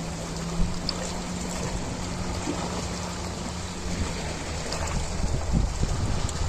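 Ocean waves washing steadily, with a low steady hum underneath that fades about two-thirds of the way through.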